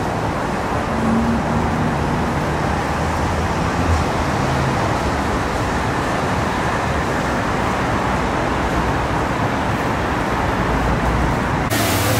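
Steady vehicle and road noise with a low hum, which changes abruptly just before the end.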